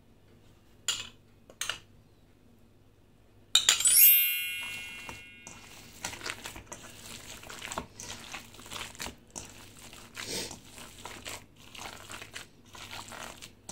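A spoon taps a stainless steel mixing bowl twice, then a louder strike sets the bowl ringing for a couple of seconds. After that, hands squish and knead wet minced chicken in the bowl in short irregular bursts.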